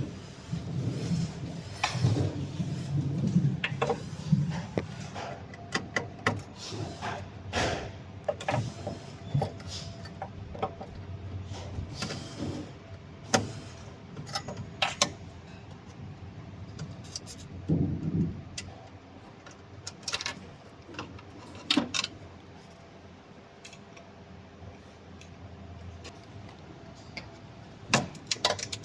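Irregular clicks, clinks and knocks of metal parts and tools being handled, with some low thumps in the first few seconds.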